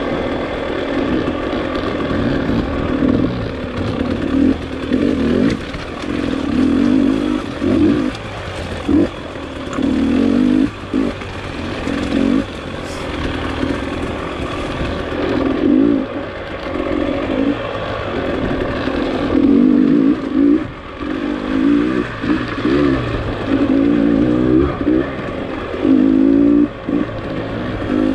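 Dirt bike engine under constant throttle work, the revs rising and falling in short bursts every few seconds as the bike picks its way along rough single track.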